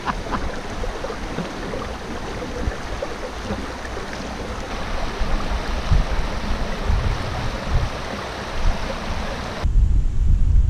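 Shallow, rocky mountain creek running, a steady rush of water over stones. About a second before the end it cuts to a low rumble of wind on the microphone.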